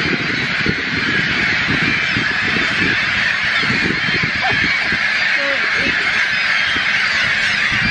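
A nesting colony of thousands of gulls calling all at once: a loud, steady din of overlapping squawks and cries, with a low rumble underneath.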